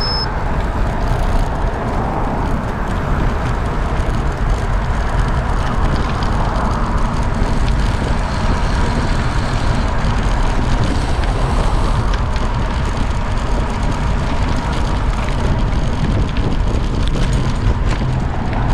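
Steady wind rushing over the microphone with road noise while riding a bicycle along a road.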